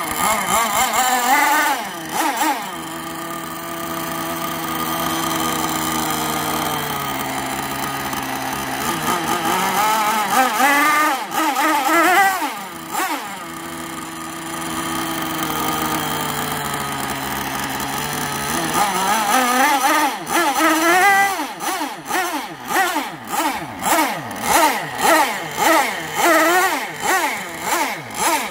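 CMB Evo 45 two-stroke model boat engine with a tuned pipe running on the ground out of the water. It is revved up and settles back to a lower, slowly falling speed twice, then is blipped about once a second near the end.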